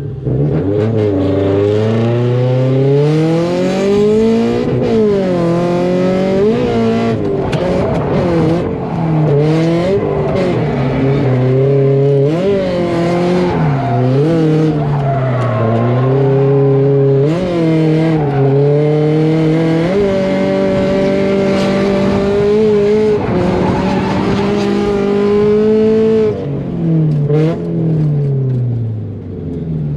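Drift car's engine revving hard through a competition run, its pitch climbing and dropping every second or two as the throttle is worked. It holds steadier for several seconds past the middle, then falls away near the end. Tire squeal comes in at intervals.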